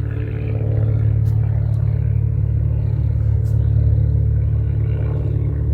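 Steady low mechanical hum, engine-like and unchanging in pitch, with a couple of faint light clicks.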